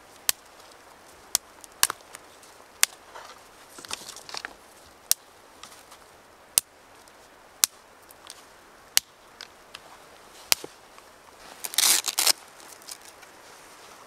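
Thin dry branches from a fallen tree snapped by hand, about nine sharp cracks, roughly one every second or so. A brief burst of rustling and crackling as twigs are handled near the end.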